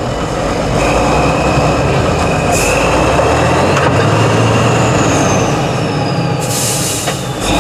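Tatra 815 8x8 trial truck's diesel engine labouring under load as the truck crawls over rough, muddy ground, its low rumble swelling about four seconds in, with a steady high whine over it. A short hiss comes near the end.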